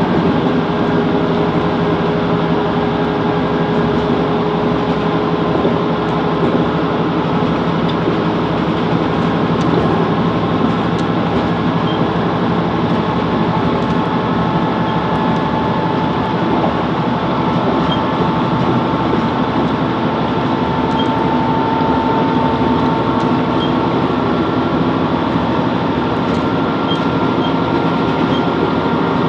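Class 165 Networker Turbo diesel multiple unit running between stations, heard inside the carriage: a steady underfloor diesel engine and transmission hum over wheel-on-rail running noise.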